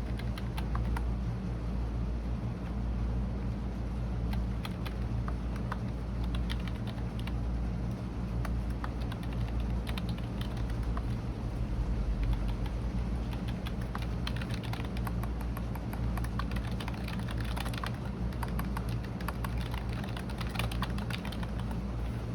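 Typing on a computer keyboard: irregular keystroke clicks, coming in quicker runs in the second half, over a steady low hum.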